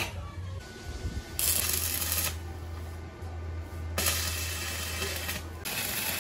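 Electric arc welding on steel: three stretches of crackling hiss, each about a second or longer, over a steady low hum, with a sharp tap right at the start.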